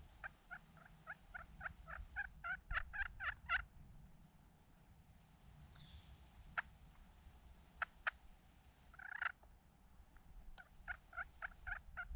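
Turkey yelping: a run of about a dozen evenly spaced yelps that grow louder over some three seconds, then a few sharp clicks, and a second run of yelps starting near the end.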